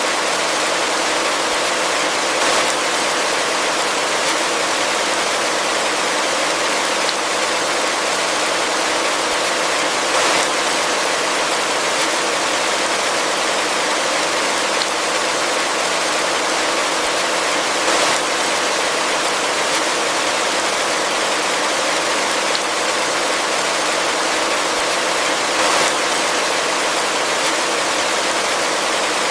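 Heavy rain falling in a steady, dense hiss, with a brief slightly louder swell about every eight seconds.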